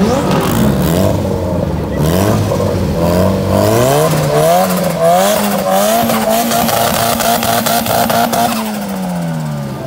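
Drift car engine revving, its pitch climbing in steps, held high for a couple of seconds, then falling away near the end, with a fast crackle about halfway through.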